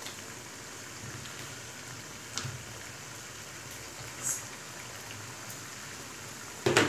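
Raw chicken pieces frying in hot oil and ginger-garlic masala in a karahi: a steady sizzle, with a few faint clicks and a louder knock just before the end.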